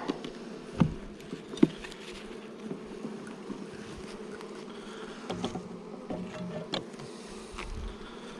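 Honeybees buzzing steadily in an open hive, with a few sharp knocks and clicks as wooden frames are worked loose to be pulled out, the loudest two in the first two seconds.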